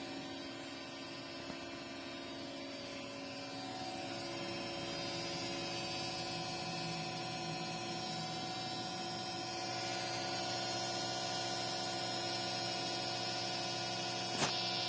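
Creality Ender 6 3D printer making a loud, steady mechanical hum with several held tones, coming from the bottom of the machine rather than its top fans. A single click near the end.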